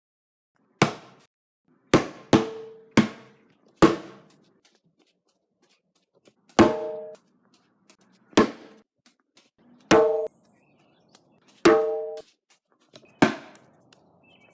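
About ten single drum-like percussion hits at uneven gaps, each a sharp strike with a short pitched ring, with silence between them.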